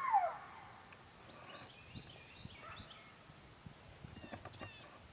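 The tail of a coyote howl, the female howl used to call coyotes, sliding down in pitch and ending about half a second in, followed by faint short high calls.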